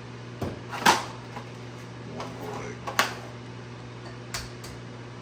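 Knocks and clatter of food containers and an egg carton handled on a kitchen counter: a sharp knock about a second in, another about three seconds in and a lighter one near the end, with some rustling between. A steady low hum sits underneath.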